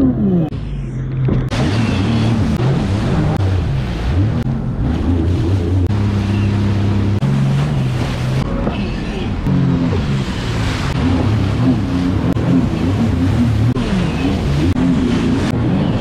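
Jet ski engines running at high revs, their pitch rising and falling as the throttle opens and closes, over the rush of surf, spray and wind.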